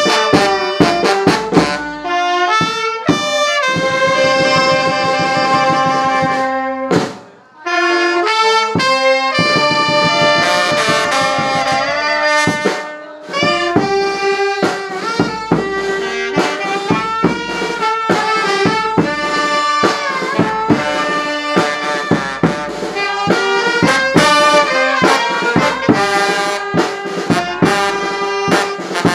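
Brass band music: held, pitched horn notes over frequent percussion hits. The music briefly drops away about seven and a half seconds in, and dips again near thirteen seconds.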